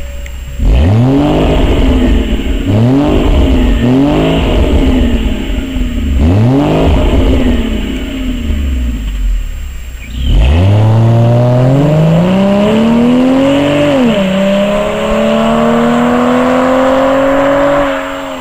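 Ford Fusion Sport's 3.5-litre Cyclone V6 exhaust: four quick revs blipped while standing, then the car pulls away under hard acceleration. The note rises, drops once at a gear change, rises again and fades as it drives off.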